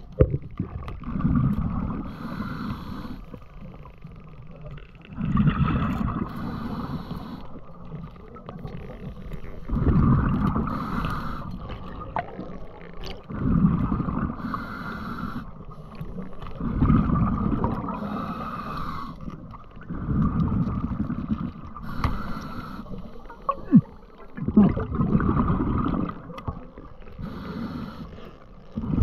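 Scuba diver's breathing through a regulator underwater: exhaled bubbles rumble and gurgle in bursts of about two seconds, roughly every three to four seconds.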